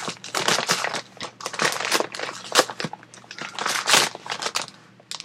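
A bag of Meow Mix dry cat food crinkling and rustling as it is tugged and wrestled at by hand to get it open, in an irregular run of scrunching bursts.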